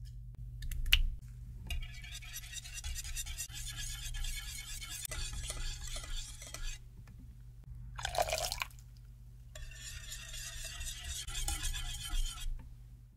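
Wire balloon whisk stirring a thick egg-yolk, melted white chocolate and butter mixture in a glass bowl, its wires scraping and ticking rapidly against the glass in two bouts. Between the bouts comes a short rushing sound, and a sharp click about a second in.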